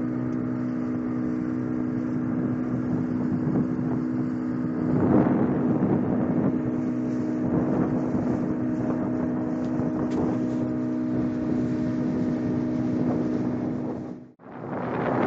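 Speedboat engine running steadily at speed, a constant drone under the rush of water and wind on the microphone, with a louder surge of water noise about five seconds in. The sound cuts out sharply for a moment near the end, then returns as a loud windy rush.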